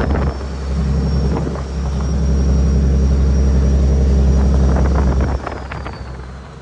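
Caterpillar 6NZ diesel in a Kenworth W900L pulling a heavy load of about 50 tons, running with a deep steady drone and a high turbo whine above it. The engine note dips briefly about half a second in, builds again, then drops off suddenly near the end as the whine falls away.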